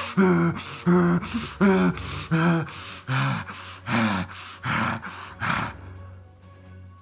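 A man breathing heavily in and out through a face mask, each breath rasping with a growl of voice, in the manner of an obscene phone caller. There are about eight breaths, roughly one every three-quarters of a second, stopping about a second before the end.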